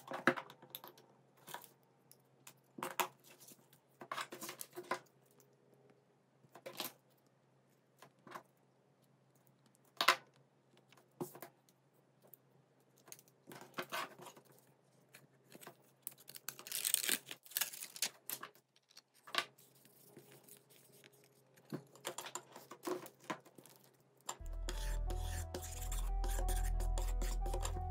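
Handling of disassembled smartphone parts on a table, a Xiaomi Redmi Note 6 Pro's display panel and midframe: scattered light clicks and taps of plastic and metal set down and picked up, with a couple of seconds of scratchy rubbing a little past halfway. Background music comes in near the end.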